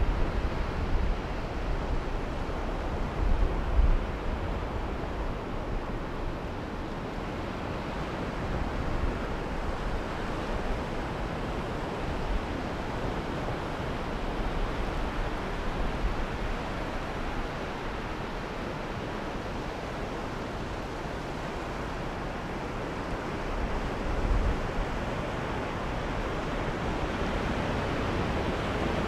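Steady rush of sea surf washing on the beach, with wind buffeting the microphone in low rumbling gusts about 3 seconds in and again near 24 seconds.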